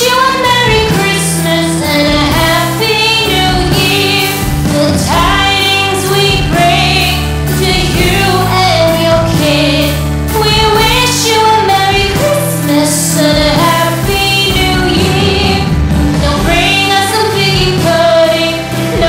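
Background music: a song with singing voices over steady held bass notes.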